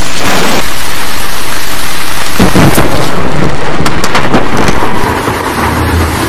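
Storm sound from a film soundtrack: heavy rain with thunder, very loud, easing off somewhat about five seconds in.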